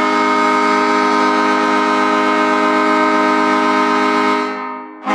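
Pittsburgh Penguins' hockey goal horn sounding a long, steady blast of several tones at once. It fades out about four and a half seconds in, and a fresh blast starts right at the end.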